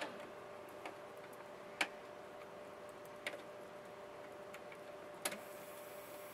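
A handful of small, sharp clicks as the multi-pin antenna-control plug is fitted into the back of an Emotator 105TS rotator control box, the loudest just under two seconds in, over a faint steady hum.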